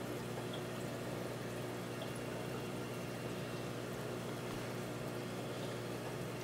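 Aquarium filter running: a steady low electric hum with water trickling and bubbling into the tank.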